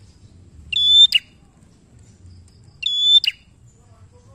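A prenjak (prinia) calling twice, about two seconds apart. Each call is a clear held whistle that ends in a sharp downward chip.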